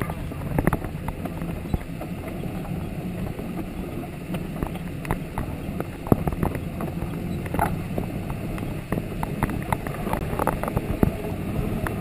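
Old Jeep's engine running steadily as it drives along a rough forest trail, with frequent knocks and rattles from the vehicle jolting over bumps.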